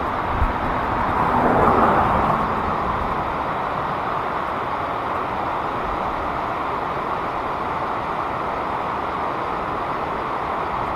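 Creek water rushing and splashing over rocks and a small drop, a steady noise with a brief louder swell about two seconds in.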